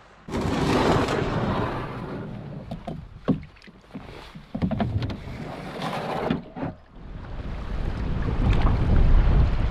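Wind buffeting the microphone over water sloshing around an open canoe, with a few knocks on the hull a few seconds in as the paddler pushes off and climbs aboard. A stronger gust rumbles near the end.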